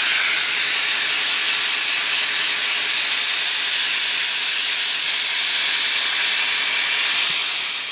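Compressed-air spray gun spraying contact cement onto the back of a vinyl car-roof covering: a steady hiss that fades away near the end.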